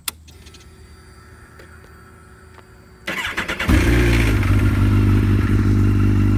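Kawasaki Ninja's inline-four engine being started. A click as the ignition key is turned and a faint hum while the ignition is on, then about three seconds in the starter cranks briefly and the engine catches, settling into a steady idle.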